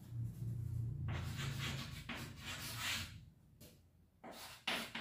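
Chalk scratching on a chalkboard as letters are written: several short scratchy strokes, two brief ones close together near the end, over a low hum in the first couple of seconds.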